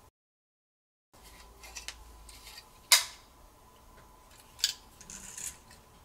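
Small handling noises of a disassembled folding smartphone and its loose parts: light rubbing and scraping with two sharp clicks, the louder one about three seconds in, over a faint steady tone. The first second is dead silent.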